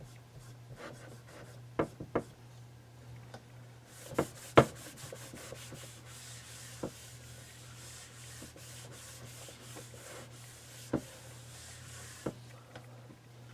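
Clock crystal being wiped down with glass cleaner: soft rubbing through the middle stretch, with a few sharp clicks and knocks as it is handled, the loudest about four and a half seconds in.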